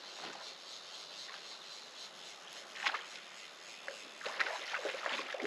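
A hooked trout splashing at the surface of the water, with one sharp splash about three seconds in and a quick run of splashes near the end. Under it is the steady wash of the brook.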